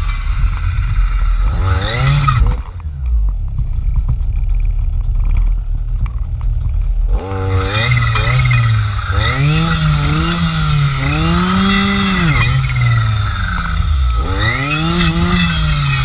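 Jonsered FC 2256 W clearing saw's two-stroke engine, fitted with a circular saw blade, running at high revs. It drops to idle about two and a half seconds in. It is revved up again about seven seconds in, its pitch swooping up and down over and over.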